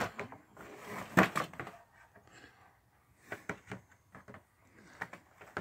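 Handling noise of a toy figure being worked loose from a cardboard display board: irregular bunches of clicks, knocks and scrapes, loudest about a second in.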